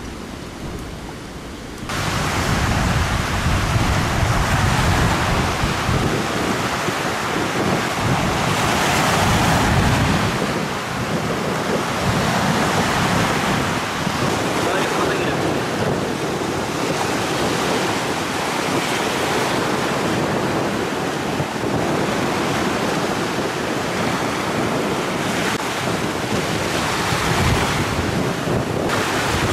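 Sea surf breaking and washing in steadily, with wind buffeting the microphone; it grows much louder about two seconds in.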